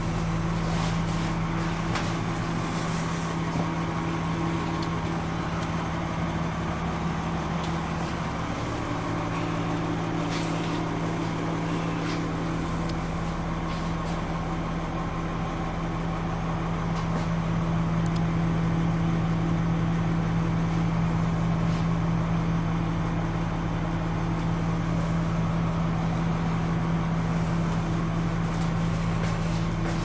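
School bus's rear-mounted diesel engine idling with a steady hum, heard from inside the passenger cabin.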